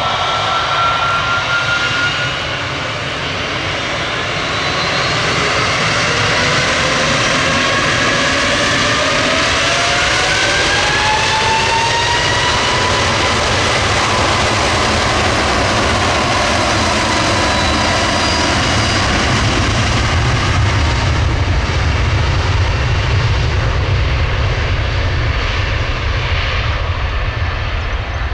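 Airbus A321neo jet engines at takeoff power: a loud, steady jet noise with whining tones that rise in pitch for several seconds. Later a deep rumble grows as the high whine fades away.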